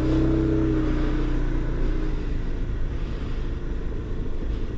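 SYM Cruisym 250i scooter's engine running as the scooter pulls away and rides off slowly, a steady low rumble with an engine note that is strongest in the first couple of seconds.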